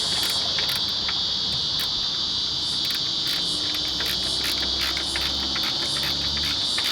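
Steady high-pitched chorus of crickets, with scattered light clicks over it.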